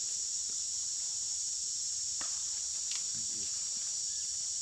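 Insects droning steadily on one high pitch, with two faint clicks about two and three seconds in.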